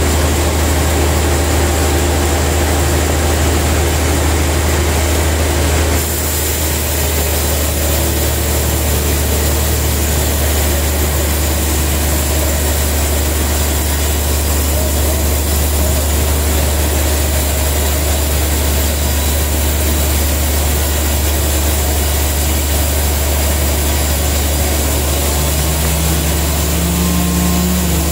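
Large band sawmill running steadily while its blade saws lengthwise through a huge trembesi (rain tree) log, a constant low motor hum under the noise of the cut.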